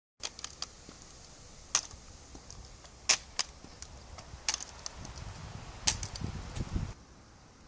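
Aluminium walking frame set down on asphalt in sharp clacks about every second and a half, with lighter clicks between. A low rumble runs under the last strokes.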